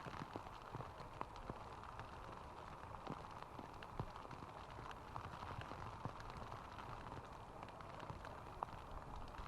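Steady rain falling, with scattered sharper drop hits.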